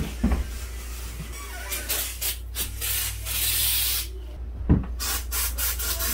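Aerosol insect-killer spray hissing from a can in several short bursts and one longer spray of about a second, aimed at hornet nests in a window frame. A single sharp thump just before five seconds in.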